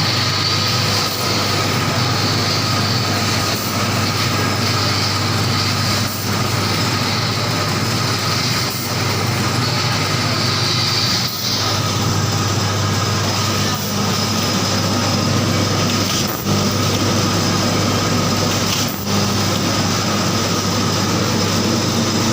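Snack pouch packing machine running with a steady mechanical clatter over a strong low hum, the sound dipping briefly about every two and a half seconds.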